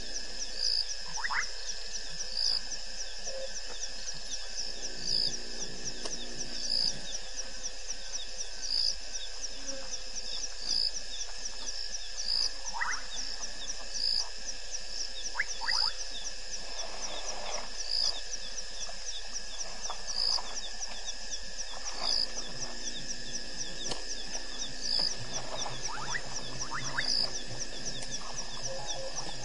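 Night chorus of insects and frogs: a steady high chirring with a sharper call repeating about every two seconds, and a few brief rising whistles scattered through it.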